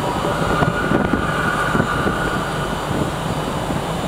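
Steady low drone of trains idling in a large railway station, with a steady high whine above it that fades out about halfway through.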